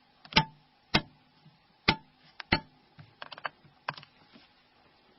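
A series of sharp, irregular clicks from a small Torx torque screwdriver as it tightens the tiny screws on a phone's flip frame.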